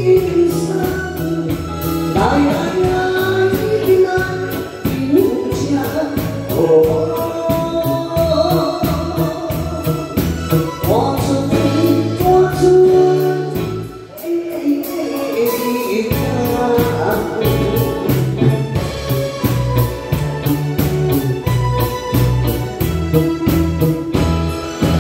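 A woman singing into a microphone over a live band of drum kit, electric guitar and keyboard. The music dips briefly about halfway through, and near the end she lowers the microphone while the band plays on.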